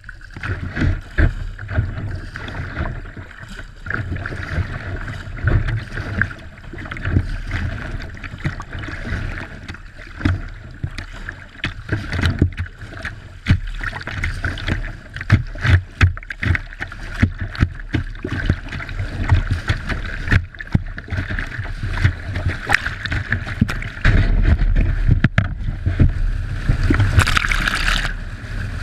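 Plastic whitewater kayak paddled through river rapids: water rushing against the hull and paddle blades splashing in and out with each stroke, heard muffled through a bow-mounted action camera's housing. It grows louder in the last few seconds as the bow punches through foaming whitewater that washes over the camera.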